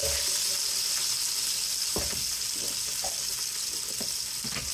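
Onion, celery and chile sizzling steadily in oil in an electric skillet, with chicken pieces tipped in at the start and a few scattered knocks.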